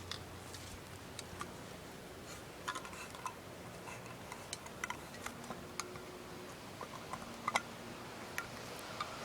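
Faint scattered clicks and ticks over a quiet steady background, with two slightly louder clicks about seven and a half seconds in.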